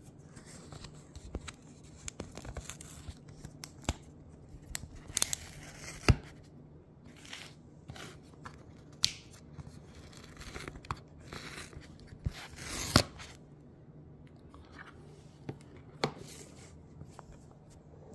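Seal tabs being picked at and torn off the edge of a cardboard smartphone box by fingernails: scattered scratching, small clicks and short tearing sounds, with the sharpest snap about six seconds in and a longer tear about thirteen seconds in.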